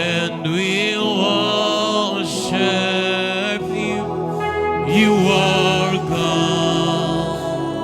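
Slow worship music: a voice singing long, gliding lines over sustained, held keyboard chords.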